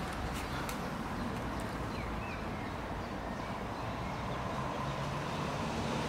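Steady outdoor background hum of distant road traffic, with a couple of faint bird calls about two seconds in and a few faint clicks near the start.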